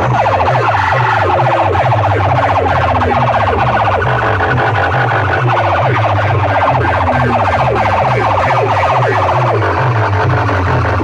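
DJ sound-system competition track played loud: repeated falling siren-like sweeps over a pulsing bass.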